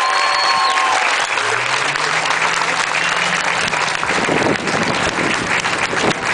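Crowd of spectators applauding, a dense, steady clapping.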